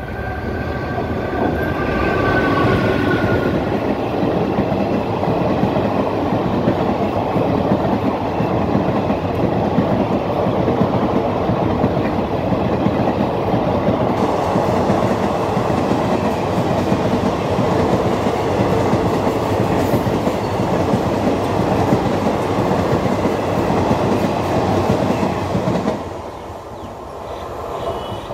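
Electric-hauled express of ICF passenger coaches passing at speed, with the rush of wheels on rail and a steady clickety-clack over the rail joints. A two-note horn tone fades out in the first few seconds. The train noise drops off sharply near the end as the last coach goes by.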